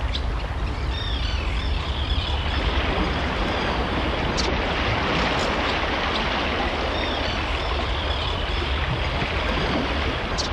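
Steady rushing water, an even wash of noise with a deep low rumble beneath it.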